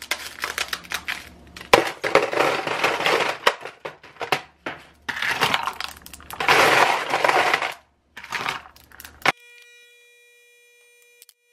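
Ice cubes cracked loose from a plastic ice tray and clattering into a plastic tumbler, a dense rattle with two long loud spells. Near the end it gives way to a faint steady hum from a coffee machine dispensing.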